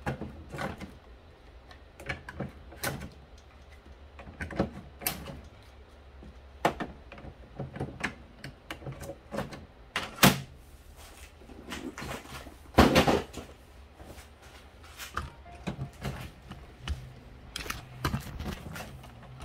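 Irregular plastic clicks and knocks from an inkjet printhead being handled and fitted into a printer, with a louder clatter about thirteen seconds in, over a low steady hum.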